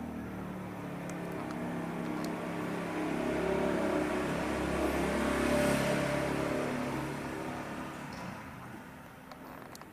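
Engine of a passing motor vehicle, a low drone that grows louder to a peak about five or six seconds in and then fades away.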